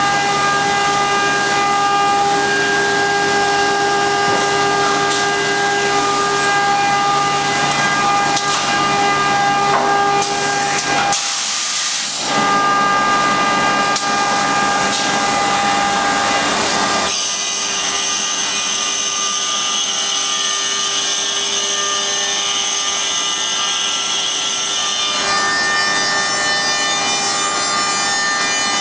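HOMAG CNC woodworking machining center running: a steady whine of several tones over a hiss, from its router spindle and cutting. There is a brief break about 11 seconds in, and the tones change about 17 seconds in and again near the end as the machining changes.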